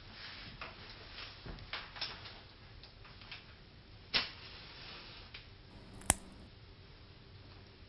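Irregular light clicks and taps of cutlery and dishes at a dinner table, with a sharper knock about four seconds in and a bright click about six seconds in.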